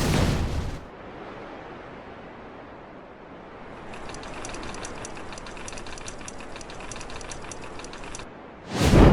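Layered fight sound effects: a loud impact that dies away within the first second, then a low rumble, with a fast mechanical rattle of sharp ticks (about eight a second) running through the middle. A loud whooshing boom swells near the end.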